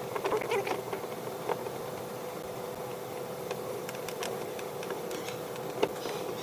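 Scattered light clicks and taps of hand work on a car, with a sharper tap about six seconds in, over a steady hum.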